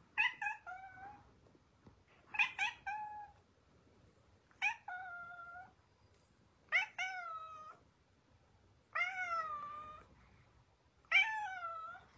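Tabby cat meowing six times, about two seconds apart. Several of the meows open with two or three quick short notes before a longer drawn-out one.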